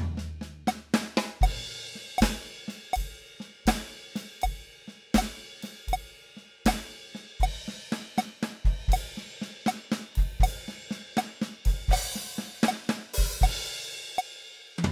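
Roland electronic drum kit played through its sound module: triplet six-stroke roll fills around the snare and toms, with the bass drum on each beat and a crash cymbal at the start and again about twelve seconds in. A metronome clicks steadily at 80 BPM underneath.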